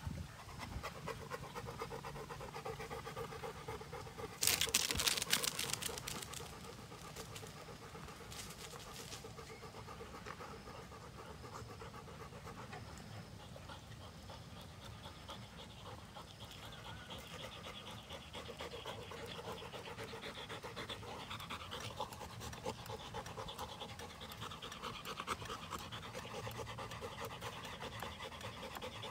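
Labrador retrievers panting hard and fast, tired from running. A brief loud rushing noise comes about four and a half seconds in, and a shorter one near nine seconds.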